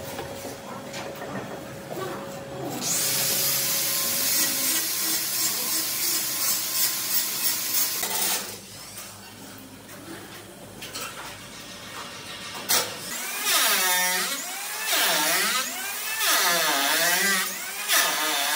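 Power tools working wood in separate passes. A loud steady cutting noise starts about three seconds in and lasts about five seconds, then it goes quieter. In the last five seconds a tool's tone sweeps up and down again and again as it is moved back and forth over the wood.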